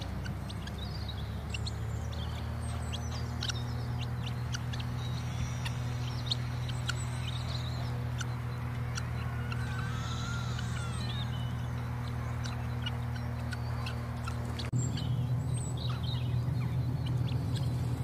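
Background music with a steady low drone, with birds chirping and calling over it. The drone shifts abruptly a few seconds before the end.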